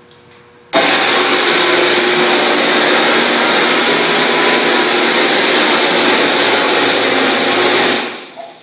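Electric circular saw running fully submerged in a tank of water, its motor treated with a water-displacing spray. It starts abruptly about a second in when plugged in, runs steadily with its blade churning the water, and winds down near the end when it is unplugged.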